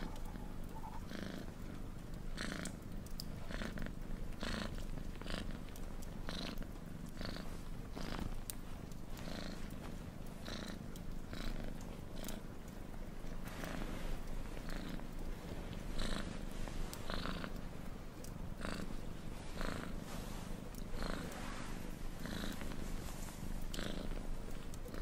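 Domestic cat purring steadily, starting right at the outset, its purr swelling and fading in a regular rhythm of about three pulses every two seconds.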